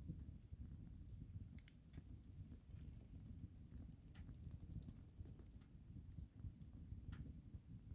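Campfire burning, faint, with scattered sharp crackles and pops at irregular times over a steady low rumble.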